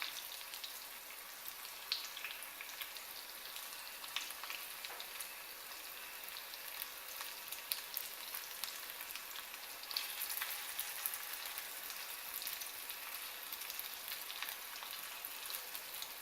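Breadcrumb-coated chicken strips frying in hot oil: a steady sizzle with many small crackles and pops, getting a little louder about ten seconds in.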